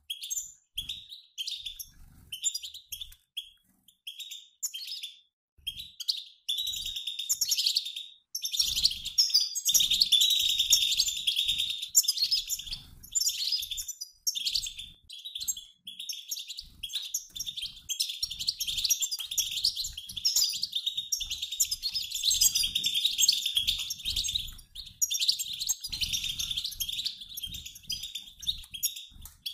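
A mixed flock of male and female European goldfinches twittering: rapid high chirps and trills, in short bursts with gaps at first, then almost unbroken from about eight seconds in.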